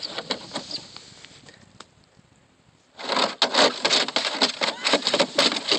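German shepherd puppy scrabbling and rolling in a plastic kiddie pool, claws and body scraping and rubbing on the plastic in a dense run of scratches and clicks. The sound fades almost away about two seconds in, then comes back suddenly and louder about three seconds in.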